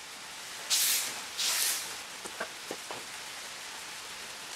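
Two short scraping rustles about half a second apart, then a few faint light clicks, as the AC condenser is worked into place in front of the radiator.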